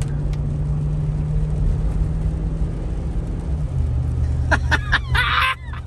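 Chevrolet Avalanche V8 running under acceleration, heard from inside the cab. Its steady engine tone steps down about two-thirds of the way through as the freshly swapped used 4L60 automatic transmission upshifts. A short vocal sound comes near the end.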